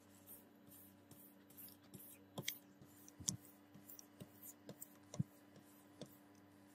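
Steel katana blade being wet-sanded by hand with 2000-grit sandpaper: faint, quick scrubbing strokes, two or three a second, broken by a few light clicks and knocks.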